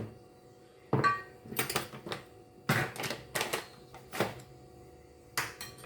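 A spoon stirring ingredients in a blender jar, knocking and clinking against its sides: about eight uneven knocks, a few with a brief ring.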